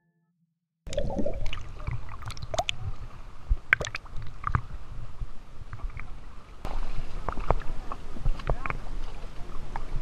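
Sea water sloshing and splashing around a GoPro in its waterproof housing at the surface: a low rumble with scattered sharp splashes and knocks. It starts suddenly about a second in and turns hissier about two-thirds through.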